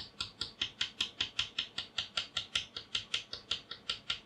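A small XPS sample plate with powder on carbon tape tapped over and over against a paper wipe on a wooden bench, about five quick, even taps a second. It is knocking the loose excess powder off the mounted sample.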